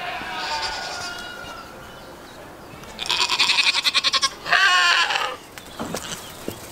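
Goats bleating: a drawn-out call that fades at the start, then two loud bleats, a quavering one about three seconds in and another just after it.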